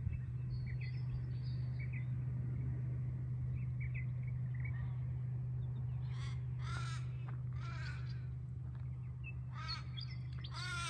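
Crows cawing, about five calls in the second half, over a steady low hum, with a few faint high chirps from small birds in the first half.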